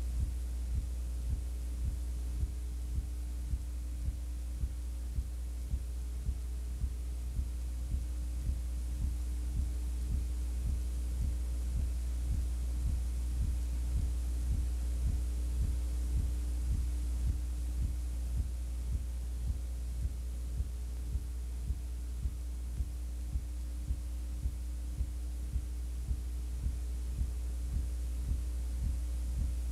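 Steady low electrical hum with a regular soft pulse about every two-thirds of a second. There is no game or crowd sound, only the noise of the old recording's audio track.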